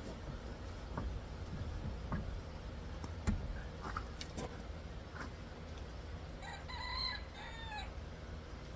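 A rooster crowing once in the background, one drawn-out call lasting about a second and a half near the end. Scattered light clicks and knocks sound through the rest, the sharpest about three seconds in.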